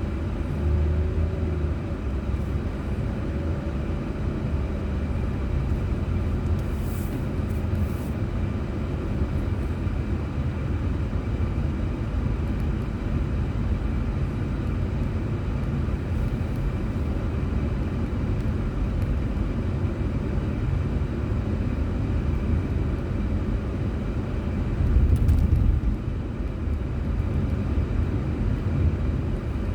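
Steady low rumble of a car on the move, engine and tyre noise picked up by a dashboard camera's microphone inside the cabin, swelling louder for about a second near the end.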